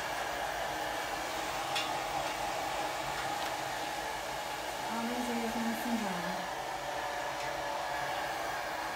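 Handheld hairdryer blowing steadily on a gentle, near-cold setting, drying a dog's face and head fur.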